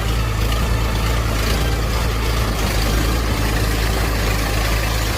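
Tractor engine running steadily under load while ploughing a paddy field, a continuous low drone.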